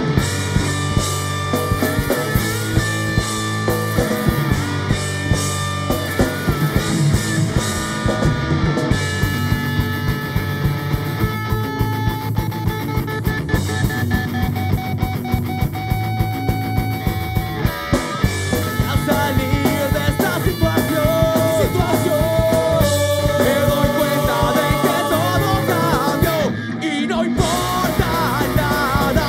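Rock band playing live: electric guitar, electric bass and drums, with a regular drum beat throughout. About twenty seconds in, a man's voice starts singing over the band.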